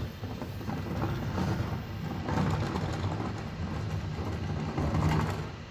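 Refuse collection lorry's engine running steadily, with clattering and a few knocks over it.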